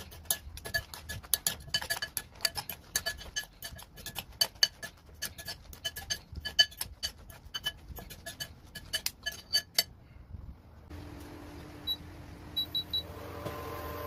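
A utensil clinking rapidly and irregularly against a bowl as a salad is tossed, each clink ringing briefly. About eleven seconds in this gives way to a steady hum with a few short high beeps as an induction hob is switched on.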